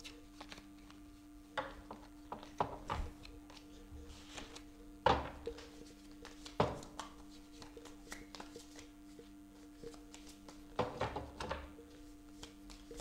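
A deck of tarot cards handled and shuffled by hand on a wooden tabletop: scattered soft taps and knocks as cards are gathered and the deck is squared, loudest about five seconds in and again about a second and a half later, over a faint steady hum.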